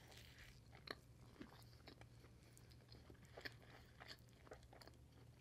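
Faint close-up chewing of a mouthful of thick hamburger, with soft wet mouth clicks and smacks every second or so over a low steady hum.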